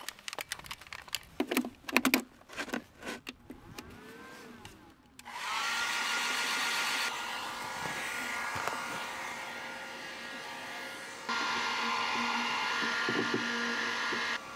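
A run of clicks and knocks, then a hand-held hair dryer switched on about five seconds in. It whirrs up to speed and runs steadily, blowing hot air onto a frozen waste pipe under a van to thaw it.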